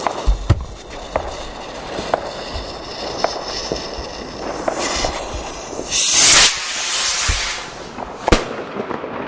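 Scattered firecracker bangs, then a skyrocket launching from its holder with a loud rushing hiss about six seconds in. About two seconds later comes a single sharp, loud bang.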